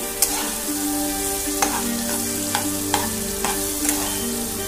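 Metal spatula mashing and stirring banana slices in sizzling ghee in a nonstick pan, with repeated sharp taps and scrapes of the spatula against the pan over a steady frying hiss.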